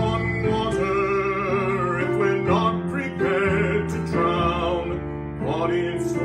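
A man and a woman singing a slow song together to piano accompaniment, holding notes with vibrato over sustained chords.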